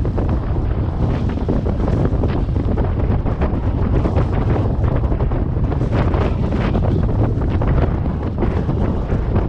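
Strong wind buffeting the microphone: a loud, steady low rumble with constant gusty flutter.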